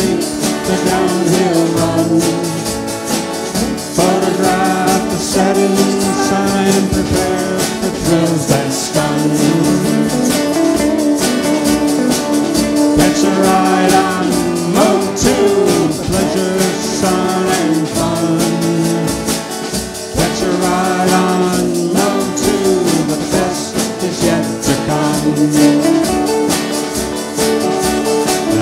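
Live band playing a song with group singing, strummed acoustic and electric guitars and a drum kit keeping a steady beat.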